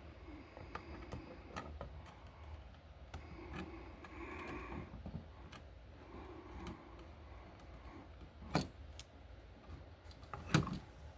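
Quiet handling of a wall receptacle and its wiring: scattered small clicks and light scraping, then two sharper knocks, one about eight and a half seconds in and one near the end.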